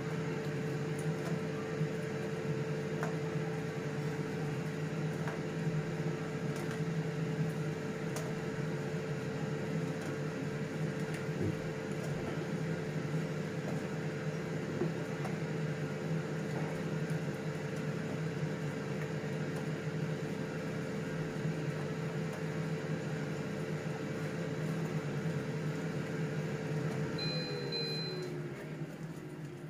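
Air fryer running with a steady motor-and-fan hum. Near the end it beeps and the fan winds down, a falling tone, as the cooking cycle finishes.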